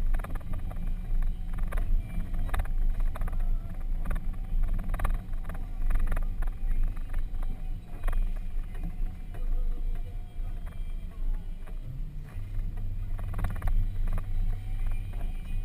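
Off-road vehicle driving slowly over a rough dirt track, heard from inside the cabin: a low engine and tyre rumble with frequent irregular knocks and rattles over the bumps. A steady engine drone comes up for a few seconds near the end.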